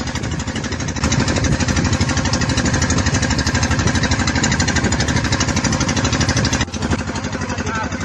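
Small fishing boat's engine running steadily under way, a fast, even chug of firing pulses.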